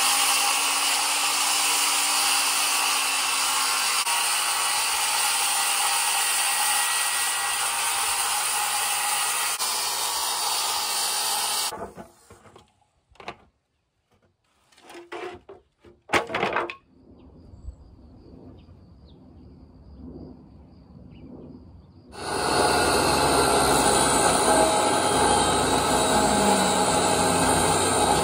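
Circular saw ripping a long wooden board lengthwise, cutting steadily and stopping abruptly about twelve seconds in. After a few knocks of wood being handled, a portable table saw starts about two-thirds of the way through and rips a thin strip of wood.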